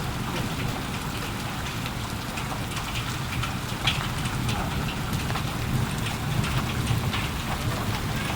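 Heavy rain falling steadily, a constant rush with many individual drops ticking sharply on a surface close by.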